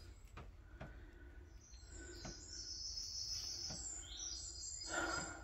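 High, thin chirping song in short level notes that step up and down in pitch, from a small songbird, about two seconds in and lasting roughly three seconds. Light clicks come through it, and about five seconds in there is a short louder rustle.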